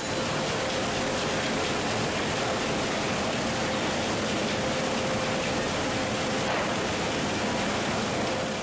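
Old cardboard-making machine running: a steady rushing noise of water and wet pulp with turning rollers, under a faint steady hum.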